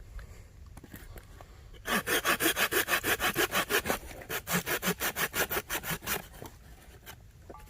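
Bahco Laplander folding saw cutting through a piece of wood with a quick, even back-and-forth rasp. The strokes start about two seconds in, come about four or five a second, and stop about two seconds before the end.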